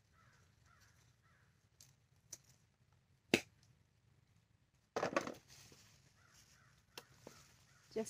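Pruning shears snip through a sweet pepper stem with one sharp click a little over three seconds in, followed about two seconds later by a burst of rustling as leaves and the picked peppers are handled, and a couple of small clicks. Three faint bird calls sound near the start.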